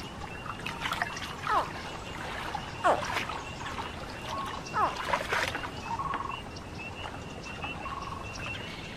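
Baby American alligators calling: three short chirps, each sliding downward in pitch, about a second and a half apart. They sound over a faint steady high pulsing from the surroundings.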